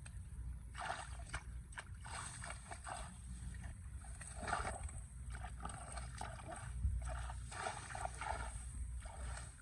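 Water and mud splashing and sloshing in irregular bursts, over a steady low rumble.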